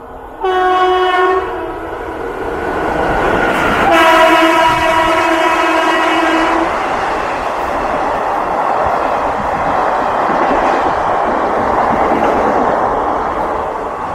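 Horn of a WCAM 3 electric locomotive: one short blast, then a longer blast of about two and a half seconds. This is followed by the loud, steady rush and rattle of its passenger coaches passing close by at speed.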